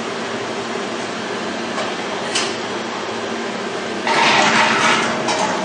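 Machinery running with a steady hum. About four seconds in, a louder hissing rush starts suddenly and lasts just over a second.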